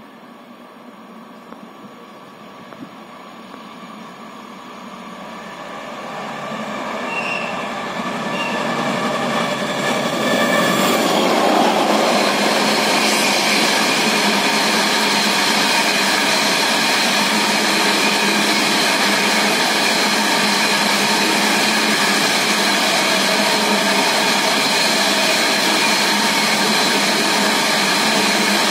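A train drawing near and then running close past. Its noise builds over about ten seconds, then stays loud and steady, with several steady high tones over the rumble.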